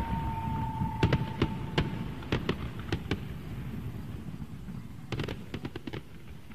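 Rumbling, crackling noise with scattered sharp pops in an electronic track's outro, and a steady high tone that cuts off about two seconds in. A quick cluster of pops comes a little after five seconds, and the whole texture fades down gradually.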